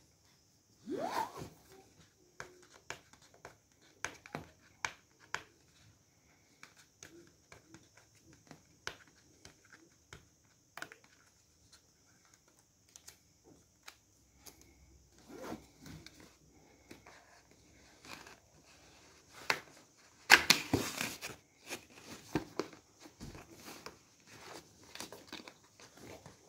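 Cardboard retail box being handled and opened by hand: scattered taps, scrapes and rustles on the cardboard as the seal sticker is worked at. About twenty seconds in there is a louder burst of tearing as the seal gives and the flap is opened.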